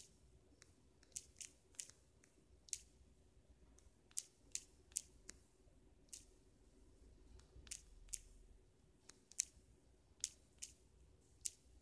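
Sharp, quiet clicks of fingertip taps typing digits on a smartphone's on-screen keyboard, in quick groups of three or four every few seconds.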